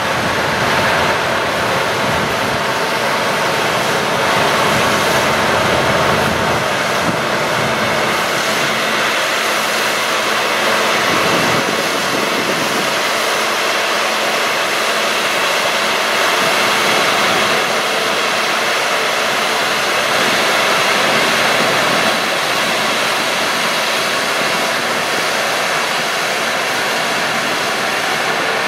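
A quadcopter drone's propellers and motors whining steadily, with a rushing hiss of air over them.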